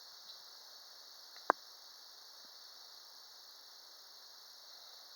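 Steady high-pitched chorus of insects chirring, with a single sharp click about one and a half seconds in.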